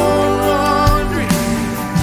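Live worship band music from a slow worship song: a held, slightly wavering melody line over sustained chords, with two drum hits about a second apart.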